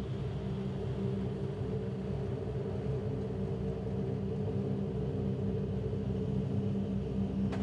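Steady low rumble of the Ford Puma Rally1's turbocharged 1.6-litre EcoBoost engine idling, with a faint click near the end.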